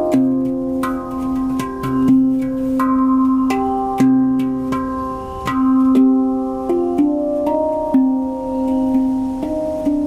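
Handpan played with the hands in an improvised solo: a steady run of struck notes that each ring on, a deep note struck again and again under quicker, higher melody notes.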